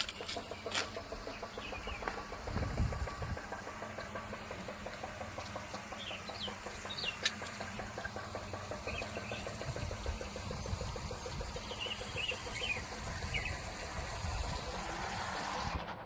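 Birds calling now and then in short chirps, over a steady background hum with a fast even pulse and a few low rumbles.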